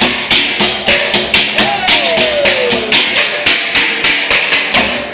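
Drumsticks striking hard surfaces in a steady, driving beat of about three sharp hits a second, ending abruptly. Partway through, a voice lets out a falling call.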